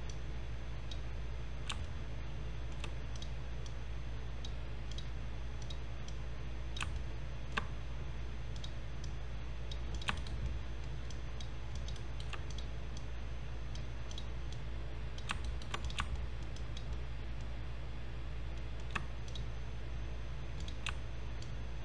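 Scattered clicks of a computer mouse and keyboard keys, now single, now in quick pairs, over a steady low hum.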